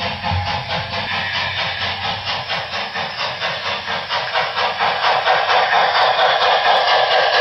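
Sound decoder of a Broadway Limited Paragon 4 HO-scale Southern Pacific GS-4 steam locomotive playing steady rhythmic exhaust chuffs with hiss, about three a second, growing louder about five seconds in.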